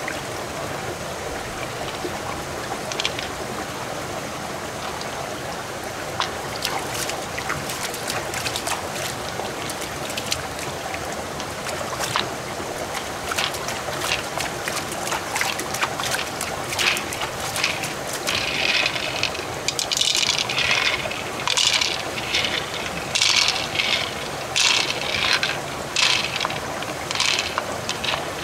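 Small stream trickling steadily over rocks. Scattered light clicks, and in the second half repeated short bursts of clattering as pearls are moved across the open mussel shell.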